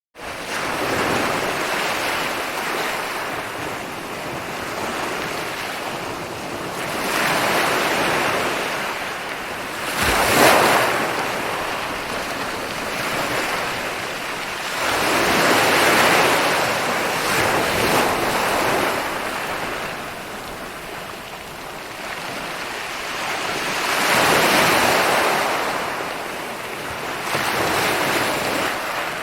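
Sea waves breaking on a shore, the surf swelling and easing in surges every few seconds, with a sharper crash about ten seconds in.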